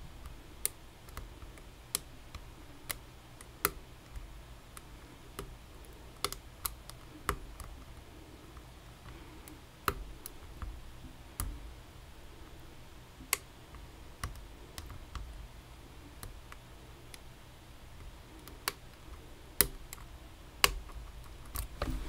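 Scattered sharp, irregularly spaced clicks of a thin lock pick working the pins of a Vachette VIP pin-tumbler lock.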